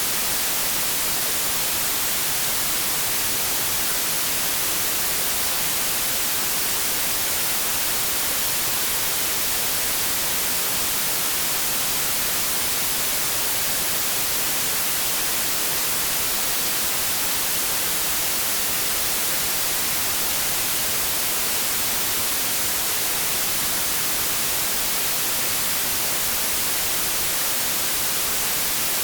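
Steady white-noise static: an even, unchanging hiss, brightest in the high frequencies.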